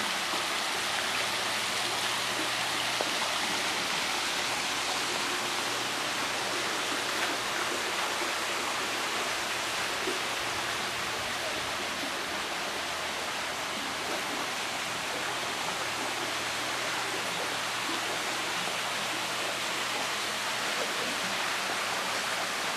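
Pool's rock waterfall splashing: a steady, even rush of falling water.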